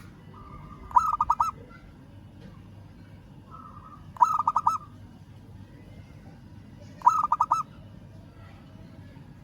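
Zebra dove (perkutut) cooing: three phrases about three seconds apart, each a soft lead note followed by a quick run of four or five loud staccato coos.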